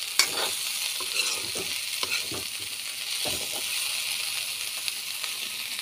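Mixed vegetables sizzling in oil in a pan while being stirred, the utensil knocking and scraping against the pan several times, with one sharp clack just after the start.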